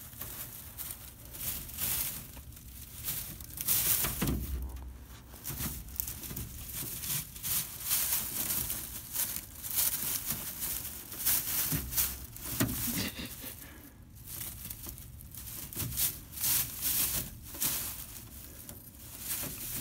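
Dry straw bedding rustling in fits and starts as rabbits dig into it and pull it about.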